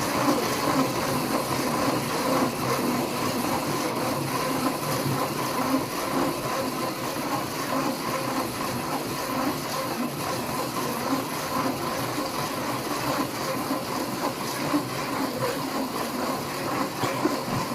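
Electric motor driving the gear train of a spirograph drawing machine, running with a steady mechanical whir and a faint high hum.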